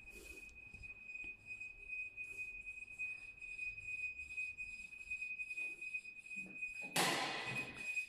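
Cold-storage unit's alarm buzzer sounding a steady high-pitched tone, signalling a fault on the refrigeration unit. A brief loud rustling burst comes about seven seconds in.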